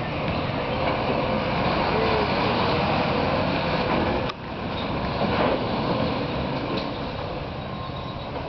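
Mercedes-Benz Arocs refrigerated lorry driving: steady diesel engine and tyre noise, with a sudden brief drop in level about four seconds in.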